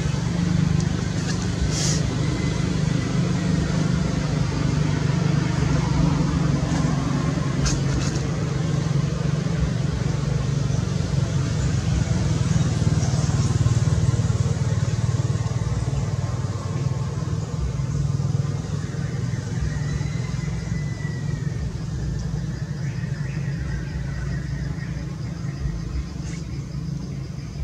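Steady low engine hum, like a motor vehicle idling, with a couple of faint clicks early on.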